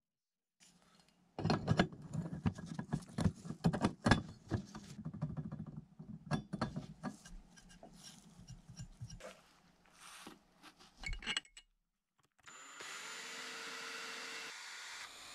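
Stripped diecast model parts clicking and knocking sharply as they are handled and set against a wooden board and vise. From about twelve seconds a small handheld electric drill runs steadily with a faint whine as it bores into a tab of the part.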